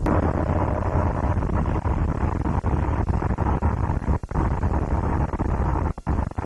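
Car interior noise while driving: a steady low rumble with hiss, cut by two or three brief dropouts about four seconds in and near the end.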